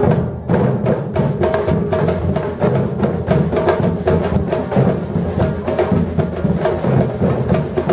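Batucada percussion group playing in full: a dense, steady drum rhythm with deep bass drums under many sharper drum strokes.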